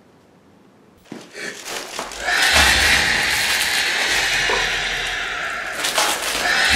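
Red liquid poured in a stream onto a man's head and splashing over him and the table, starting about two seconds in and running on as a steady splashing hiss.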